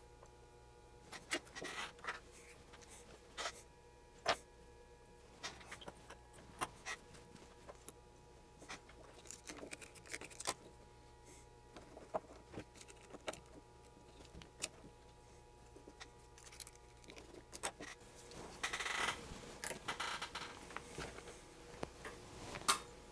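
Faint, scattered small metallic clicks and taps of a screwdriver working on Mueller BU-75K insulated test clips held in a small bench vise, with a couple of seconds of scraping and rubbing near the end.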